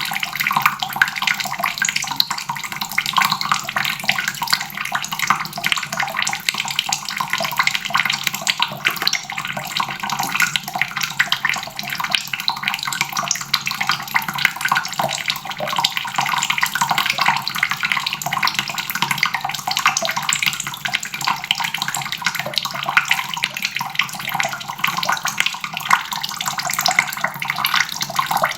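Water faucet running steadily, a stream of tap water splashing into a basin.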